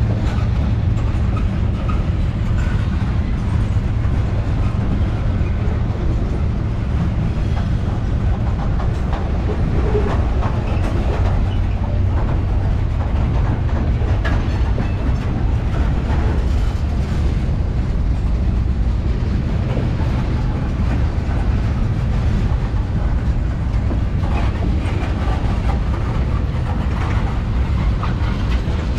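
Norfolk Southern manifest freight train rolling past: a steady rumble of cars going by, with wheels clicking over the rail joints.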